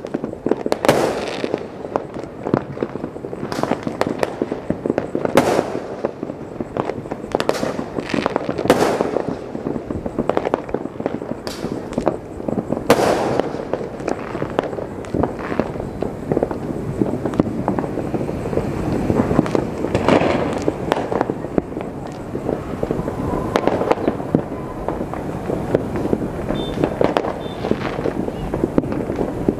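New Year fireworks going off in many places at once: a dense, continuous crackle of pops and bangs, with louder single bangs standing out every second or two.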